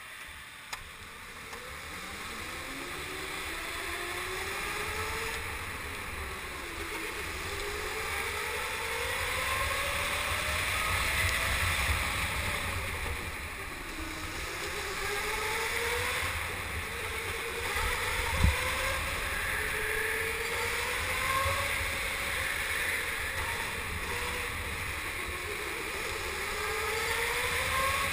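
Electric go-kart motor whining, heard from the driver's seat, rising in pitch as the kart speeds up along the straights and dropping as it slows for the corners, over and over, over wind and tyre noise. A single knock about two-thirds of the way through.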